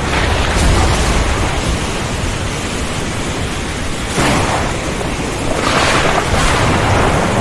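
Heavy rainstorm: a dense, steady hiss of rain and wind over a deep low thunder rumble, with louder swells about four seconds in and again around six seconds.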